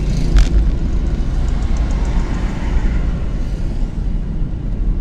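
Steady road and engine rumble inside the cabin of an old car driving along, with one short knock about half a second in.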